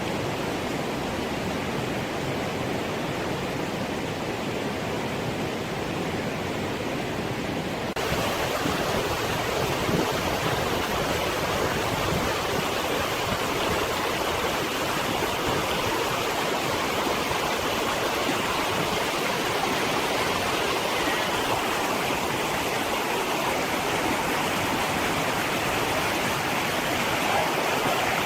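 Steady rushing of running water. About eight seconds in it cuts abruptly to a brighter, slightly louder rush.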